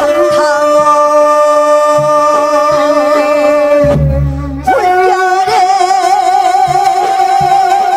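A woman sings a Korean folk song (minyo) into a microphone, holding two long notes with a wide vibrato over instrumental accompaniment. A short low-pitched passage of the accompaniment fills the break between the notes, about four seconds in.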